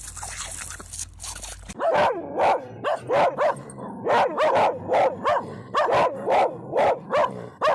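A dog barking over and over, about two barks a second, starting about two seconds in after a stretch of steady hiss.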